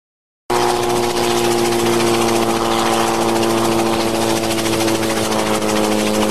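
Small piston-engined helicopter hovering just above the ground, its engine and rotor giving a steady drone that starts abruptly about half a second in.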